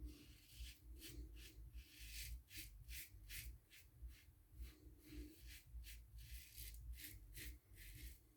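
Faint, short scrapes of a Gillette Ball-End Tech safety razor cutting stubble, about two or three strokes a second.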